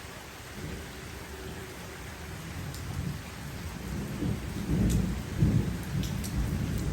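Distant thunder rumbling low, swelling about halfway through to its loudest near the end, over steady hurricane rain.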